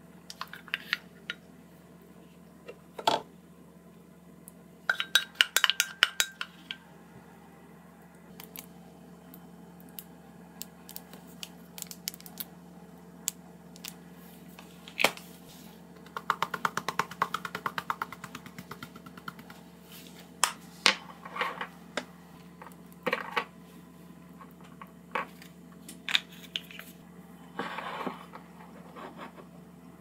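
Kitchen handling sounds of a wooden spoon and dishes: scattered taps and clinks on a ceramic bowl, with a quick run of rattling clicks a little past halfway as dried parsley is shaken on. A low steady hum lies underneath.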